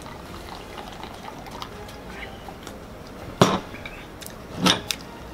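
Drinking from a plastic bottle with faint gulping and liquid sounds, then the bottle is set down on a table with one sharp knock about three and a half seconds in. About a second later comes a short, loud vocal burst from the drinker.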